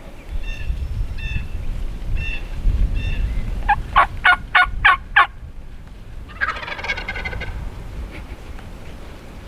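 Wild turkey gobbler gobbling loudly about four seconds in, a fast rattling run of about seven pulses, with a second, fainter gobble a second later. Short high bird chirps repeat in the first few seconds over a low rumble.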